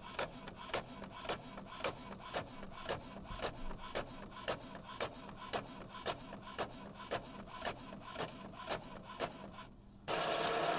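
Epson Expression Home XP-4205 inkjet printer printing a test page: a regular ticking, a couple of ticks a second, as the print head and paper feed work, then a louder steady whirr near the end.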